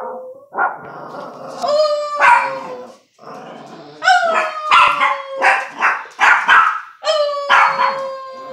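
A woman imitating a dog's howl, three long drawn-out calls that slide slightly down in pitch, to set a small dog off. The dog answers with excited barks and yips between and over them.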